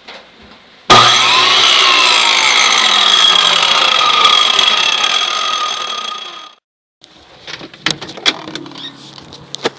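Power tool starting abruptly and running loud with a steady high whine, its tones sliding downward as it winds down and fades out after about five seconds. It is followed by a series of sharp clicks and knocks.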